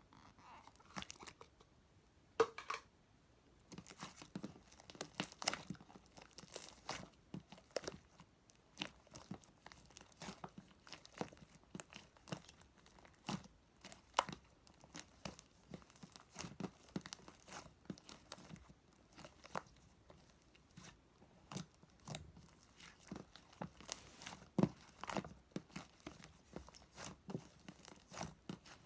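Dense, irregular crinkling and crackling with sharp clicks, close to the microphone, and a few louder snaps among them.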